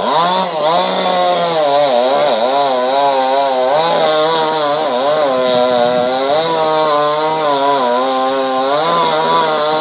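Petrol chainsaw cutting through an oak limb at full throttle, its engine pitch wavering up and down as the bar loads and frees in the wood.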